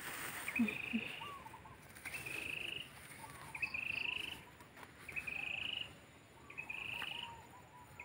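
An unseen animal calling over and over: a short pulsed trill, slightly rising, repeated about every second and a half, with faint lower chirps in between. The singer is taken for a bird in the trees.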